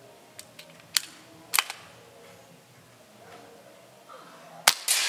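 BSA Gold Star SE .177 pre-charged air rifle: a few light clicks from the action being worked and a pellet loaded through the single-shot tray, then near the end a sharp shot crack with a fading tail, and a second sharp crack about a second later.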